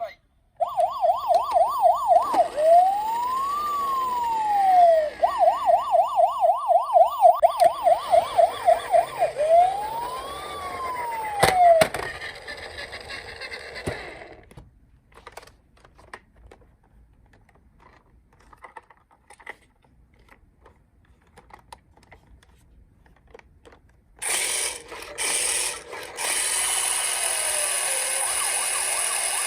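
Toy police car's electronic siren switching twice between a fast yelp of quick repeated pitch sweeps and a slow rising-and-falling wail, then cutting off about twelve seconds in. Scattered small clicks and rattles follow, and near the end a loud steady whirring hiss starts.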